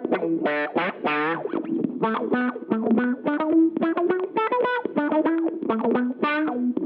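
Electric guitar played through a Jed's Peds Brain Bleach fuzz pedal: a fast, choppy riff of short picked notes with distorted fuzz tone.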